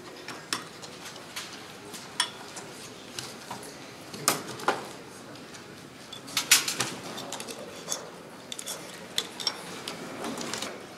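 Irregular metallic clinks and knocks of hand tools and metal parts being handled and set down, about a dozen separate strikes. The loudest come as a pair about four and a half seconds in and as a quick cluster around six and a half seconds.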